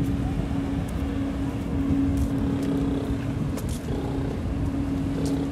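An engine running steadily, giving a constant low hum over the low rumble of city traffic.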